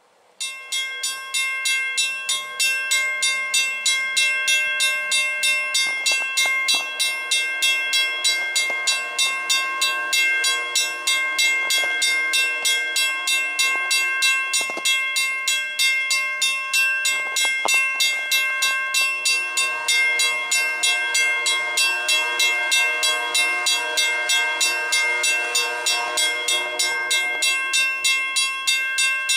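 Railroad grade-crossing bell starting up suddenly and ringing in an even rhythm of about two to three strokes a second, the signal that a train is approaching the crossing. About two-thirds of the way in, lower steady tones join it.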